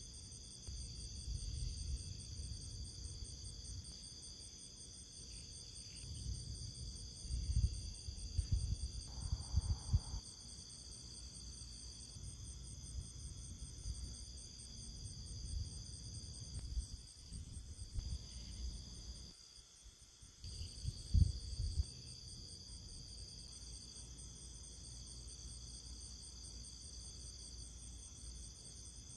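Steady chorus of insects chirring, a rapid high pulsing over several steady high tones, with irregular low rumbles underneath.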